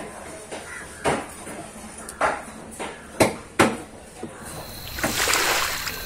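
Large curved fish-cutting knife striking a wooden chopping board while filleting a trevally: four sharp knocks, the last two close together. About four and a half seconds in, this gives way to a steady high tone and a rushing swell.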